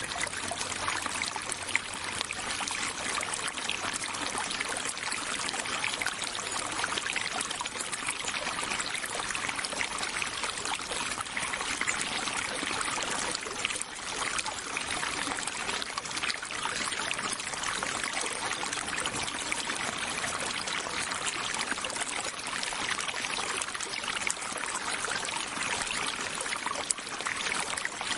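A small stream of water running and trickling steadily over stones, a continuous bubbling splash.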